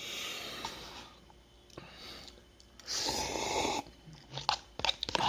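A person eating instant noodles with noisy mouth sounds: two long breathy rushes, then a run of quick wet clicks of chewing in the last second or so.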